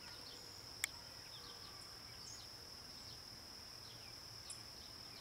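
Faint outdoor ambience: insects keep up one steady high-pitched drone, with short bird chirps scattered through and a single sharp click a little under a second in.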